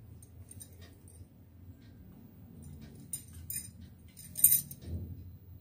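Light clicks and clinks as hands handle small clay balls on a stainless steel plate, a few soft taps a little after three seconds and a louder cluster about four and a half seconds in.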